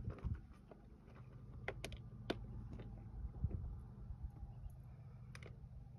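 Scattered, irregular light clicks and rattles of fishing gear being handled, over a low steady rumble.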